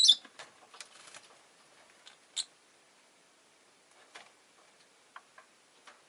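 Rosy-faced lovebird giving short, high chirps: a louder one at the start and another about two and a half seconds in, with scattered light clicks and ticks in between.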